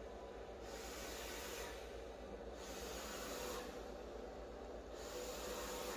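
Ceiling fan running on its slow setting: a faint steady hum under a soft hiss that swells and fades about every two seconds.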